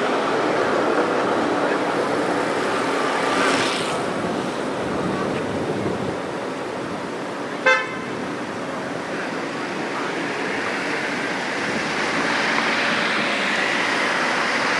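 A short horn toot about halfway through, over steady outdoor machinery and traffic noise.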